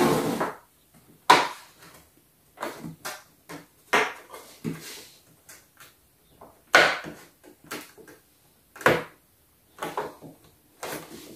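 Plastic toy dollhouse parts being handled and pressed together: an irregular series of sharp clicks, knocks and short scrapes as a window frame is pushed into the house's wall.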